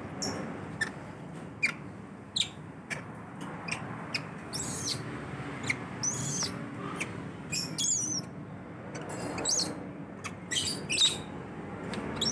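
Baby macaque giving a run of short, high squeaks and a few longer wavering squeals, begging impatiently while its milk bottle is being filled.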